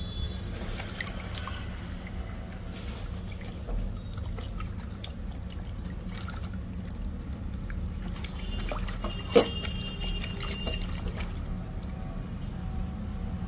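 Water sloshing, trickling and dripping as small whole fish are rinsed by hand in a stainless steel bowl, with scattered small splashes and clicks and one sharp knock about nine seconds in, over a steady low hum.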